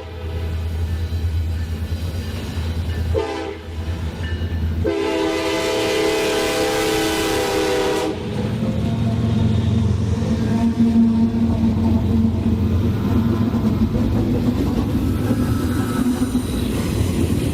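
Train horn sounding two long blasts, the first cutting off about three seconds in and the second about five seconds later, over the low rumble of a train, which then keeps rumbling steadily as it passes.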